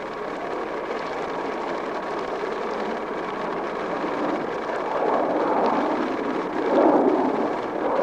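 Steady rushing wind noise, likely wind buffeting an outdoor microphone in the cold, swelling louder about five and again about seven seconds in.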